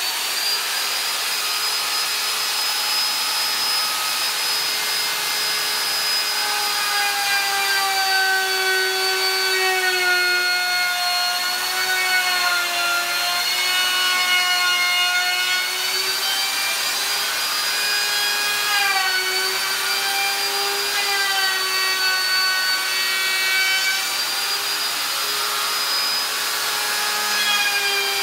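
Compact router running at full speed with a bearing-guided round-over bit, cutting a radius along the edge of a high-density polyethylene board. A steady high whine whose pitch sags a little now and then as the bit takes the cut.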